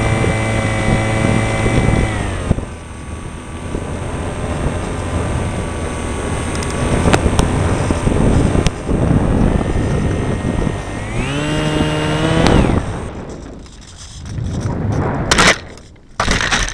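Radio-controlled model airplane's motor, heard from a camera on board with air rushing over the microphone: it runs steadily, is throttled back about two seconds in, leaving mostly wind noise as the plane glides. About eleven seconds in the motor opens up again with a rising pitch, then cuts off, and a few sharp knocks follow near the end.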